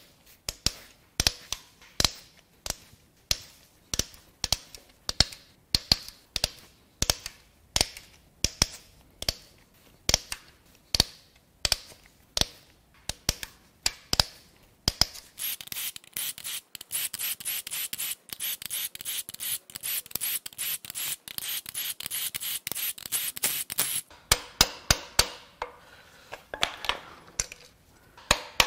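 Hand ratchet wrench clicking as it loosens camshaft bearing-cap bolts on a cylinder head. It clicks in short strokes about one and a half times a second, turns into a long run of fast continuous clicking about halfway through, and goes back to slower strokes near the end.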